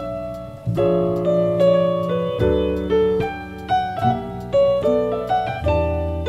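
Background piano music: a melody of single notes struck over held chords.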